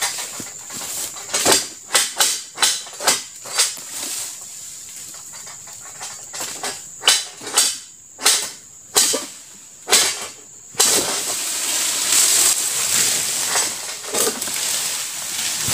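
Mechanical jerk-action palm harvesting sickle (egrek) on a long pole striking and cutting at an oil palm's frond bases, a run of sharp chopping knocks a fraction of a second apart in two bouts. Then, about two-thirds through, several seconds of dense leafy rustling as the cut frond moves through the crown.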